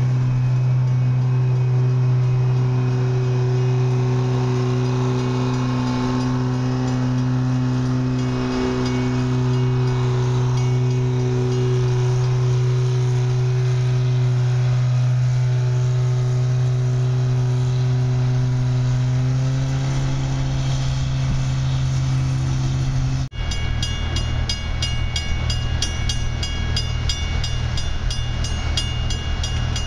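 Diesel engine of a slow-moving rail work train running steadily as its flatcars roll through a grade crossing. After a cut about 23 seconds in, a grade-crossing warning bell rings about two to three times a second over the low running of idling track machines.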